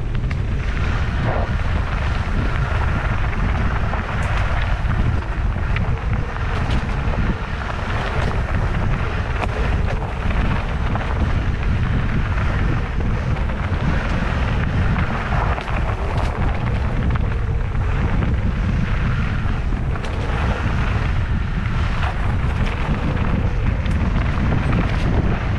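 Steady wind buffeting on the microphone over the running engine of a dirt bike riding singletrack trail.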